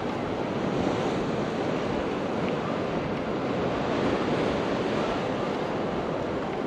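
Sea waves washing steadily, with wind buffeting the microphone.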